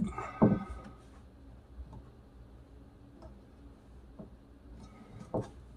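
Metal clicks and knocks from a helping-hands soldering stand being handled and its arms adjusted: a louder knock near the start, a few faint ticks, and another knock near the end.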